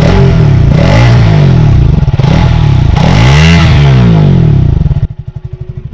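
KTM Duke 200 BS6's single-cylinder engine revved twice through its underbelly exhaust, each rev rising and falling in pitch. It drops back to idle about five seconds in. The exhaust note is muted by its BS6-compliant exhaust, quieter than the BS4 model's.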